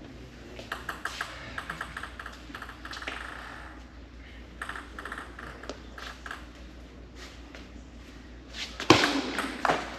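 Table tennis ball bouncing in two quick runs of small clicks that speed up as it settles, as the ball is bounced before a serve. About nine seconds in, louder sharp hits of ball on bat and table as the serve goes in and the rally starts.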